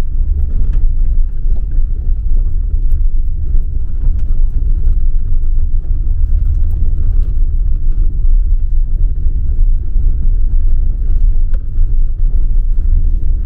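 Steady low rumble of tyres and suspension on a rough, unpaved dirt road, heard inside the cabin of a Tata Nexon EV electric car, with scattered small knocks and rattles.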